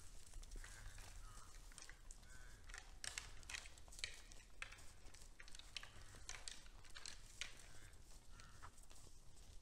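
Faint, scattered crunches and clicks from red deer feeding at hay and stepping in snow.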